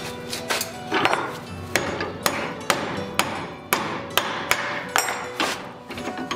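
Hand hammer striking red-hot steel clamped in a bench vise, about two blows a second, folding over the second ear of a pair of box jaw tongs.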